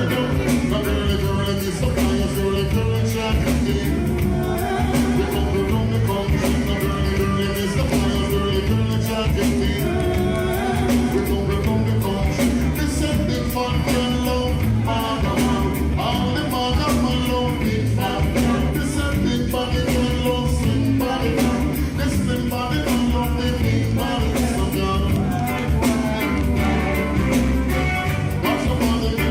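Live reggae music: a band with a heavy bass line and steady beat, with a singer's voice over it.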